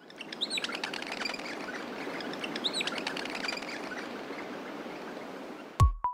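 Birds chirping over a steady outdoor hiss, a cartoon park ambience. A brief louder sound with a held tone cuts in just before the end.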